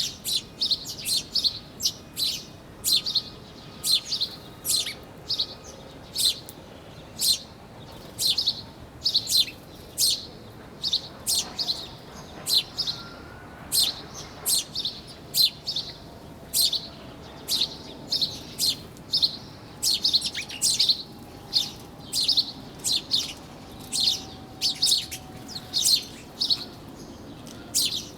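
Small birds chirping: short, sharp, high chirps repeated about one to two times a second without a break.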